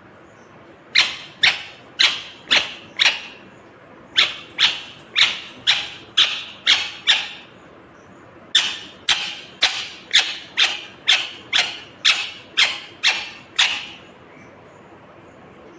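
Indian ringneck (rose-ringed) parakeet screeching in three runs of sharp, loud calls, about two calls a second, the last run the longest.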